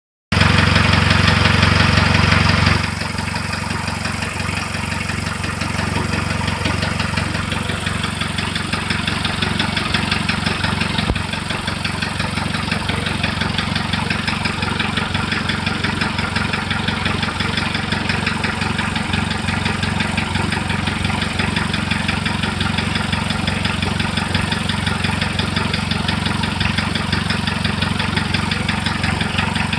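Diesel engine running with a knock in it, whose cause the owner does not know. It is louder for the first three seconds or so, then settles to a steadier, quieter run.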